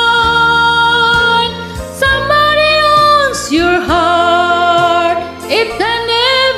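Singing over a karaoke backing track, with long held notes that slide up and down between pitches.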